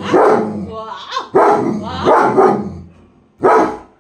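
German Shepherd barking in a run of short, loud barks with bending pitch, then one more bark near the end after a brief pause.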